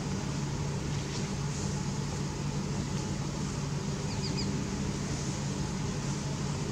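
Steady low mechanical hum over an even background noise, with three quick high chirps about four seconds in.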